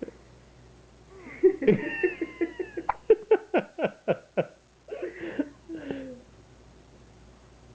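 Newborn baby's high, squeaky fussing cries, mewing like a cat. In the middle comes a quick run of about eight short cries at roughly five a second.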